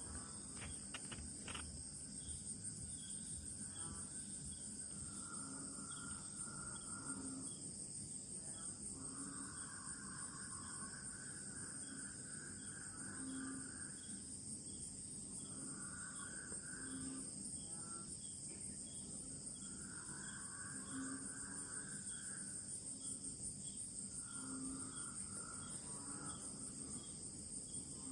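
Night jungle chorus: frogs give short, low, cow-like mooing calls about every two seconds over a steady high drone of insects. Longer pulsing trills come and go every few seconds.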